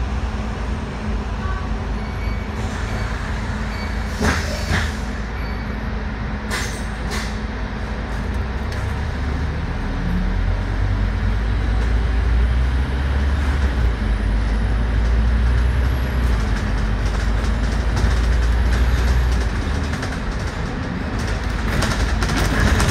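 Scania K310UD double-decker bus heard from inside as it drives: the Scania DC9 diesel engine and drivetrain make a steady low rumble with a few short rattles early on. The rumble grows louder from about ten seconds in and eases briefly near the end.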